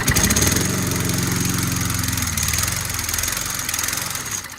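Old petrol lawn mower engine catches and runs for about four seconds, then dies away near the end. It starts but won't keep running, the fault being fixed.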